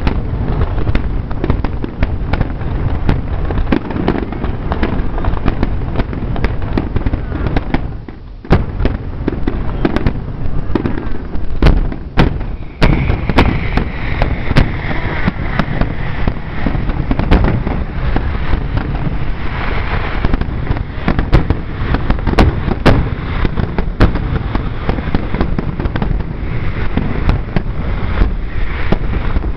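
Aerial firework shells bursting in a dense, continuous barrage, booms overlapping one another, with a brief lull about eight seconds in.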